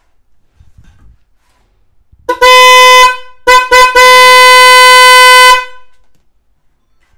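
12V electric snail horn sounding on test leads: a honk of under a second, two quick short toots, then a long steady blast of about a second and a half, all on one high, steady tone. Faint clicks of the clip leads being handled come before the first honk.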